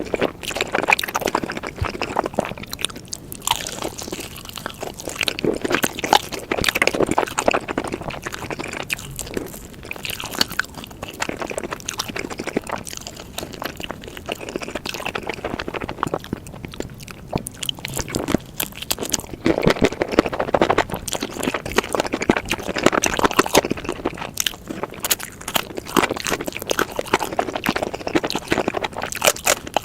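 Close-miked eating sounds: chewing and crunching food, with many small clicks and smacks in irregular bursts.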